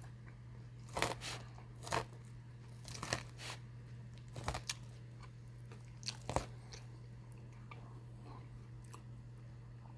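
A person chewing a mouthful of chicken Caesar salad, with a series of short crunches in the first six and a half seconds, then a few seconds without them.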